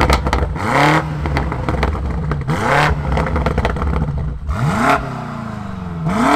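BMW M8 Competition's 4.4-litre twin-turbo V8 blipped about four times from idle with the sports exhaust valves open, with crackles and pops around the first rev. Near the end the exhaust is switched off and it settles to a quieter idle before the next blip.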